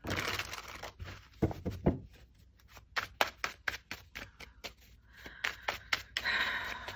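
A deck of tarot cards being shuffled by hand: soft sliding, a couple of low knocks about a second and a half in, then a quick run of crisp card clicks, with sliding again near the end.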